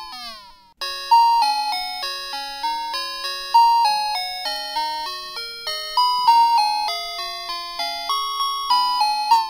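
Background music: a bright melody of bell-like chiming notes, with a quick falling run of tones just after the start and again at the end as the tune repeats.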